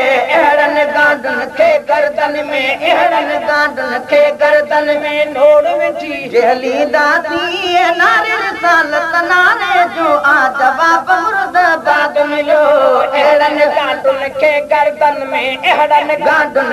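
Sindhi naat, a devotional song, sung in a wavering, melismatic voice, with sharp beats behind it.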